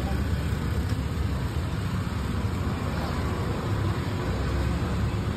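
Steady street ambience: a continuous low traffic rumble with a hiss over it.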